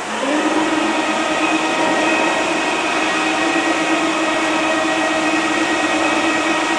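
Lower stage weapons elevator machinery running aboard an aircraft carrier: a loud, steady electric hum and whine with several held tones, starting just after the beginning. The elevator's door slides open during it.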